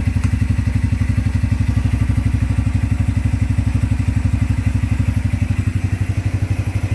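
Honda Grom's 125 cc single-cylinder four-stroke engine idling with a steady, even beat.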